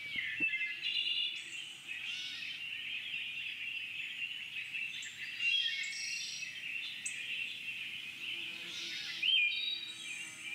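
Several birds chirping and calling at once in a continuous chorus of short twittering calls, with one louder call about nine seconds in.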